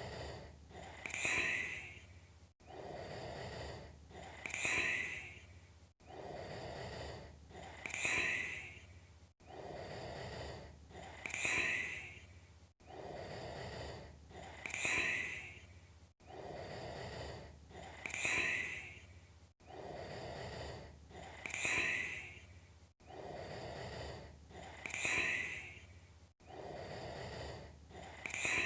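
A person breathing heavily in a slow, regular rhythm, one breath cycle about every three and a half seconds. Each cycle is a rougher, lower-sounding breath followed by a louder hissing breath, and the cycles repeat identically with a brief cut between them, like a looped recording.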